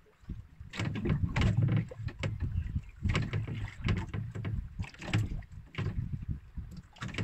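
Water lapping and slapping against the hull of a small outrigger boat in irregular surges, with scattered knocks.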